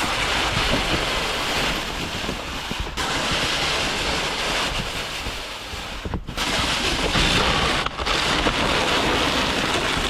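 Wind buffeting the microphone in outdoor clips cut together, a steady rushing noise with abrupt changes at the edits about 3, 6 and 8 seconds in.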